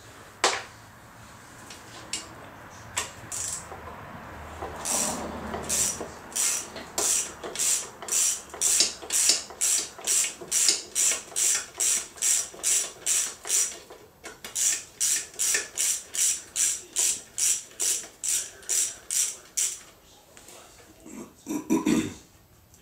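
Hand socket ratchet clicking in steady back-and-forth strokes, about two to three a second, as bolts on an Alpha One Gen 2 sterndrive housing are backed out, with a short pause midway. A couple of heavier metal clunks come near the end.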